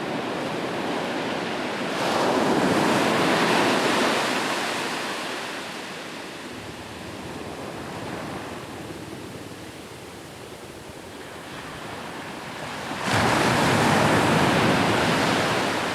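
Ocean waves breaking on a shoreline: one surge swells up about two seconds in and slowly fades, and a second rushes in suddenly near the end.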